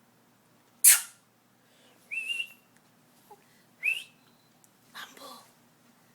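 A baby making short high-pitched vocal sounds. First a sharp breathy squeal about a second in, then two brief squeaks that rise in pitch, then softer breathy sounds near the end.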